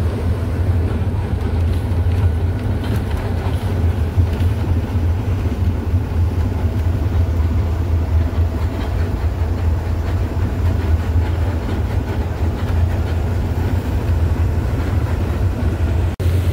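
Diesel truck on the move, engine and road noise as a steady low drone. It breaks off for an instant near the end.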